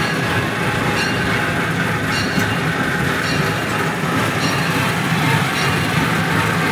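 Open-car park train ride running along its track: a steady rumble with a light click about once a second.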